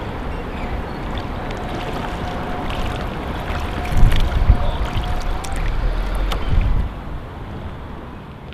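Water splashing and lapping around a kayak being paddled, with heavy low gusts of wind rumbling on the microphone in the middle; the sound drops away after about seven seconds.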